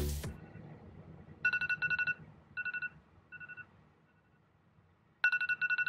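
iPhone alarm ringing: quick high electronic beeps in bursts, one loud round then two fainter, shorter groups fading away, with the cycle starting again near the end.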